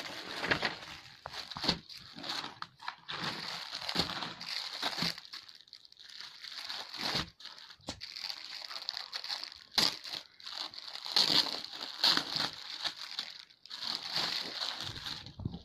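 Thin clear plastic polybag crinkling and crackling unevenly as hands handle it and open it around a folded garment, with a few sharper crackles here and there.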